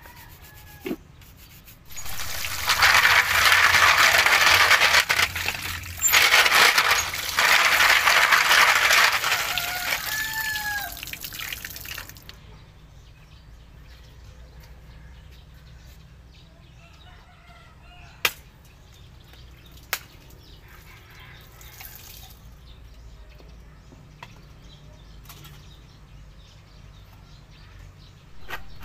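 Water running and splashing for about ten seconds as a stainless steamer pot is rinsed, with a short bird call near the end of it. Later, two sharp cracks a couple of seconds apart as a coconut is struck open with a blade.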